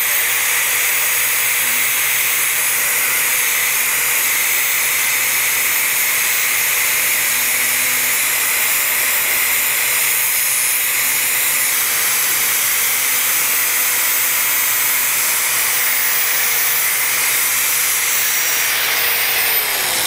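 Festool angle grinder with a flap disc sanding the cut end of a wooden board: a steady high motor whine over the hiss of the abrasive on the wood, spinning down near the end.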